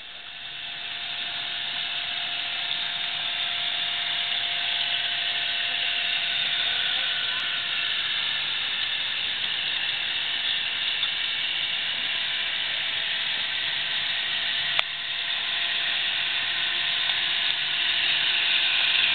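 Toyota 4Runner on 35-inch tyres working up a muddy washout, its engine and drivetrain running steadily under load with a thin steady whine over a hissing noise. It grows louder over the first couple of seconds, then holds. A single sharp click comes about 15 seconds in.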